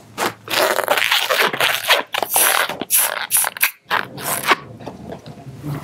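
Latex modelling balloon (a black 260 scrap) rubbing and squeaking in the hands as it is squeezed, twisted and tied into a small eye bubble. It is a quick, irregular series of scrapes that dies down about four and a half seconds in.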